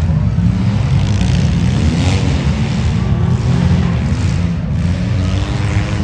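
Compact cars' engines running and revving together in a demolition derby, with revs rising about two seconds in and again near the end.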